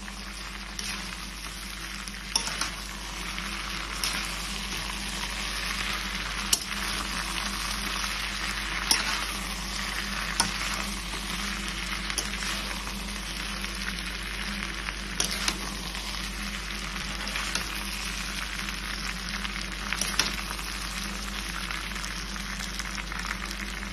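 Chilli chicken with onions and capsicum sizzling as it is stir-fried in a metal wok, over a steady frying hiss. A metal spatula scrapes and knocks against the pan at irregular moments every few seconds.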